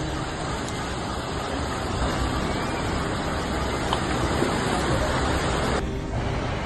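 Steady rushing noise of fast-flowing floodwater, changing abruptly near the end.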